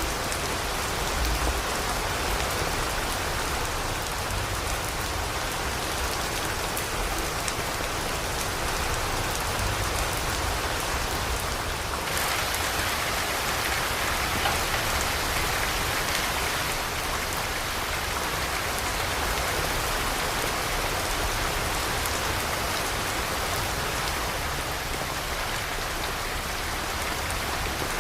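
Steady rain falling, an even hiss of many drops. About twelve seconds in the sound changes abruptly and becomes brighter and hissier.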